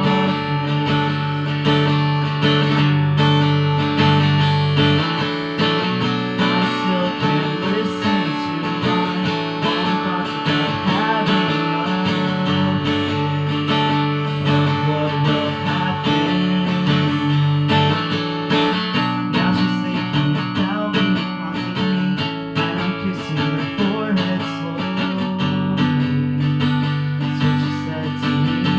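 Acoustic guitar played live, ringing chords changing every few seconds.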